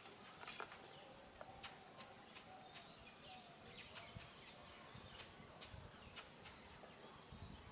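Near silence: faint outdoor ambience with a few small ticks and some faint bird chirps.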